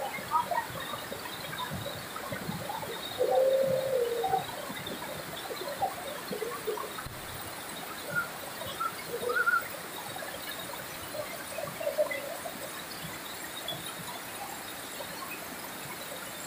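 Whitewater rapids rushing steadily over rock ledges. A short call rings out about three seconds in, with a couple of fainter brief calls later.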